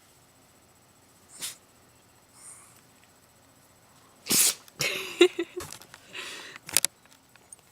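Dog sneezing repeatedly, set off by lying on his belly. A small sneeze comes about a second and a half in; a loud sneeze a little past the middle is followed by a quick run of further sneezes, ending in a few sharp clicks.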